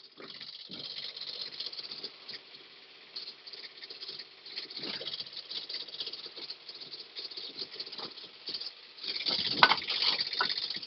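Komatsu PC30-3 mini excavator running, with a continuous light rattle over a faint steady hum. The rattle gets louder and heavier about nine seconds in.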